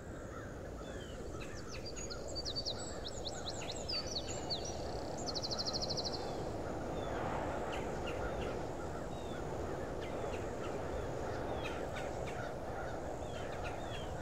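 Birds chirping and calling, with one rapid, evenly pulsed trill about five seconds in, over a steady low outdoor rush. It fades in at the start.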